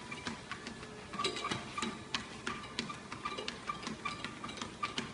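Treadmill running with a dog walking on its belt: a steady ticking about three times a second.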